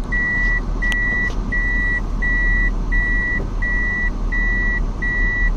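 A vehicle's reversing alarm beeping steadily on one high tone, about eight evenly spaced beeps, over the low sound of an engine running.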